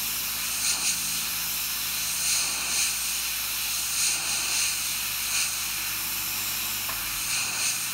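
Airbrush spraying white paint, its air valve turned down to a lower pressure: a steady hiss of compressed air with small swells in level as it sprays.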